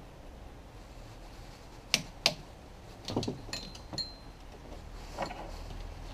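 Two sharp clicks from a click-type torque wrench about two seconds in, as the new belt tensioner's mounting bolts reach 25 N·m. After them come lighter metallic clinks of tools, one with a brief ringing tone near four seconds.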